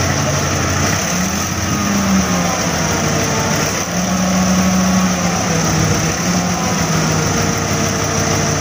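Isuzu 10PD1 V10 diesel engine of a dump truck running steadily with its PTO engaged, driving the hydraulic hoist as the dump box tips up. A faint, slightly wavering whine rides over the engine.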